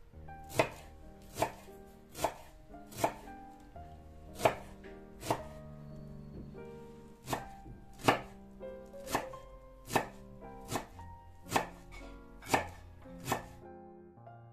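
Kitchen knife chopping fresh parsley and coriander on a wooden cutting board: about fourteen sharp knocks, a little more than one a second, with a short pause midway.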